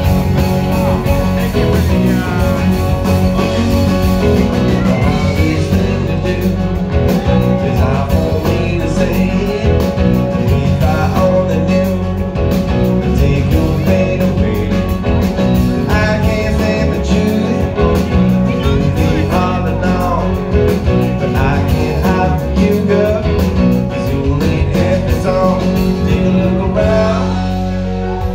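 Live band playing a rock-soul song, with electric guitar over bass and drums.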